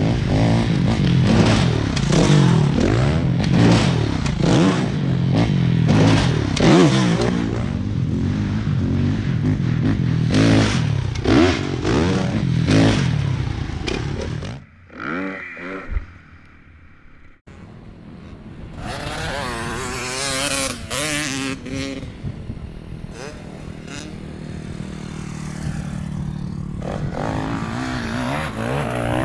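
Dirt bike engines revving up and down as riders go round a motocross track. The engine sound drops away briefly about halfway through, then returns with rising and falling revs.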